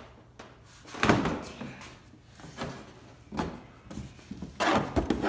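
Plastic side cover of an Arctic Cat ATV being tugged and worked off the frame: a series of knocks and plastic clunks, loudest about a second in and again near the end.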